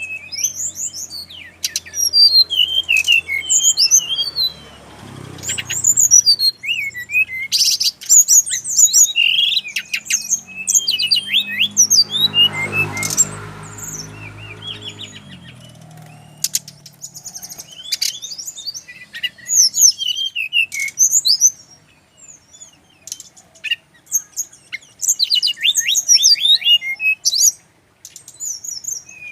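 Brown-chested jungle flycatcher singing: phrase after phrase of quick, high, varied twittering notes, with short pauses between them. A faint low rumble comes under the song twice.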